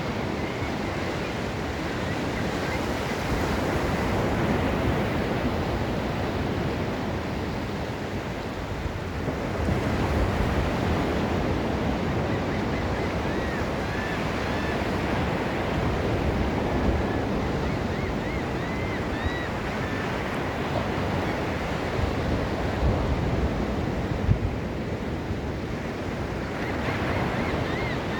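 Ocean surf on a sandy beach: waves breaking and washing ashore in a steady wash that swells and eases. The loudest surge comes about ten seconds in.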